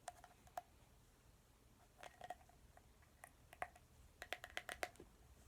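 Faint, scattered plastic clicks and taps from a small plastic slime container being handled while its tight lid is tried, with a quick run of clicks near the end.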